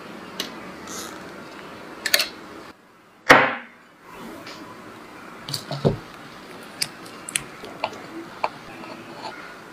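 Small clicks and taps of a knife and a ceramic plate over a steady background hiss, with one louder knock about three seconds in.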